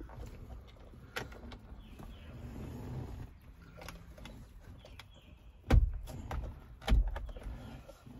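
Clicks, knocks and rattles of an Allen wrench being pushed and wiggled in the release holes of a 2018 Ford F-150's steering-wheel airbag module to unlatch it, with two loud thumps near the end.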